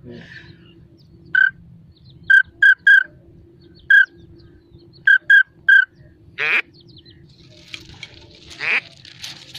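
Hand-held duck whistle calls blown in short, high peeps, about eight in uneven groups, to imitate whistling pintail and teal. About six and a half seconds in comes a longer call falling in pitch, and near the end another one over a hiss.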